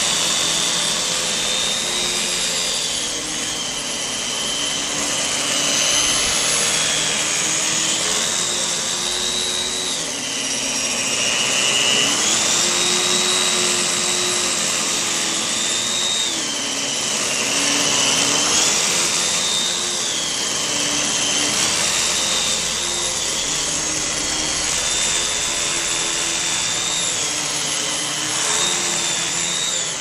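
Dyson upright vacuum cleaner running while it is pushed over carpet: a steady rushing suction with a high motor whine that shifts up and down in pitch every couple of seconds.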